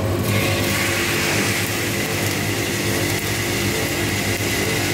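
Freshly roasted robusta beans dropping out of a drum coffee roaster into its cooling tray. About a quarter second in, a steady rushing rattle of pouring, stirred beans starts over the constant hum of the roaster's motors. The sound marks the drop at the end of a medium roast, just after first crack.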